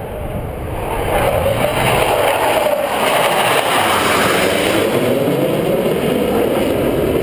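Jet engine noise from four Blue Angels F/A-18 Hornets in diamond formation climbing out overhead after takeoff. The noise is loud, swells about a second in, and its pitch slides down and then back up as the jets pass.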